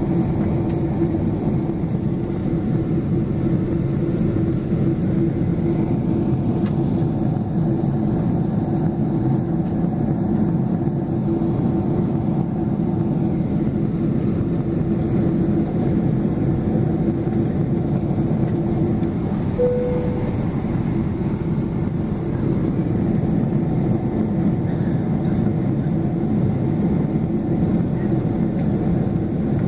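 Cabin noise of a Boeing 777-200LR climbing after takeoff: a steady, loud rush of engine and airflow with a low hum. A single brief tone sounds about twenty seconds in.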